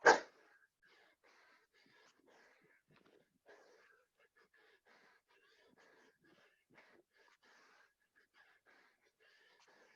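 A loud, sharp sound right at the start, then faint, rapid, wheezy breathing in short repeated bursts: a person breathing hard during a burpee workout.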